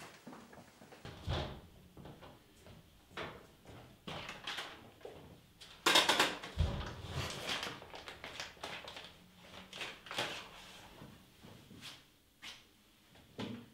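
Kitchen cupboard doors and drawers being opened and shut: a string of separate clicks and knocks, with a louder clatter about six seconds in.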